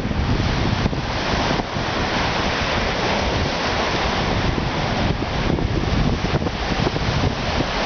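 Lake Michigan waves breaking on the beach in strong wind, with wind buffeting the microphone in a low, uneven rumble.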